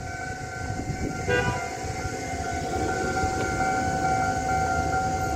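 Railway level-crossing warning alarm sounding steadily with the barrier arms down, the signal that a train is approaching.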